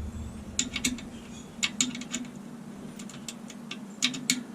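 Small metal tools clicking and clinking in short clusters about a second apart, as sockets are picked out and tried on a bolt to find its size.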